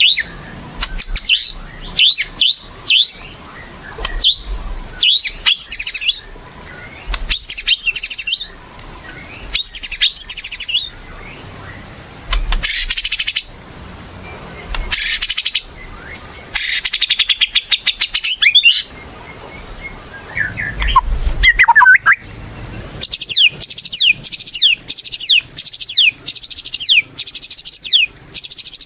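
White-rumped shama (murai batu) singing: loud, varied phrases of whistles and trills with short pauses between them, then a fast run of repeated falling notes, about four a second, through the last few seconds.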